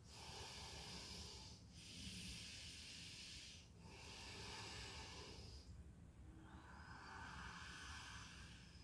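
Faint, slow deep breathing through the nose: about four long breaths, each close to two seconds, with short pauses between them, a demonstration of deep yogic breathing.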